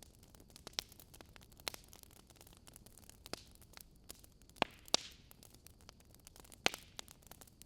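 Fire crackling: scattered sharp snaps and pops over a low hiss. The loudest pops come just before five seconds in, followed by a brief hiss.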